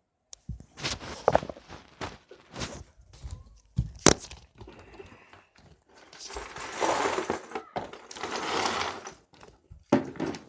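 Handling noise: a scatter of sharp knocks and clicks, with two longer spells of rustling in the middle, as someone moves about, settles down and handles objects.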